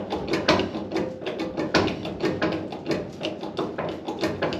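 Hydraulic bottle jack being pumped by hand to push a caved-in car roof back out, with a sharp click or knock about twice a second.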